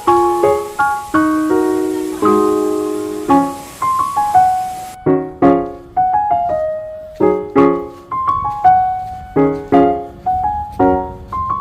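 Background music: solo piano playing a melody of struck notes that ring out and fade.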